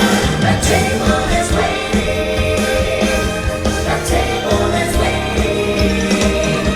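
Upbeat stage-show music with singing and a steady beat, played over a loudspeaker system.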